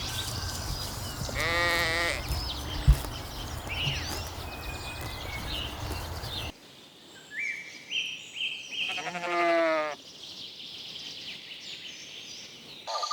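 Lambs bleating twice, each bleat about a second long with a wavering, quavering pitch: once about a second in and again about nine seconds in. A low rumbling noise and a single sharp knock lie under the first bleat's stretch, and short bird chirps come between the two bleats.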